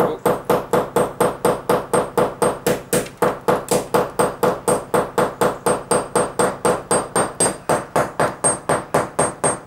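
Claw hammer driving a cable clip's steel nail into brick with a rapid, even run of light taps, about four a second, each tap ringing. Many small taps rather than a few big hits keep the nail from bending in the hard masonry. The tapping stops near the end.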